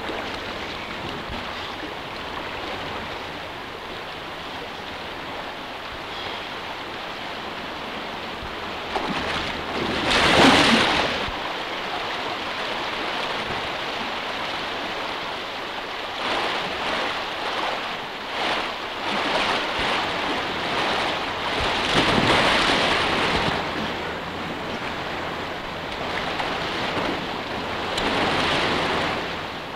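Fast-flowing river water rushing steadily, with louder splashing surges as a man in waders thrashes, falls and is swept along through the current. The biggest splash comes about a third of the way in, and there are more from a little past halfway to near the end.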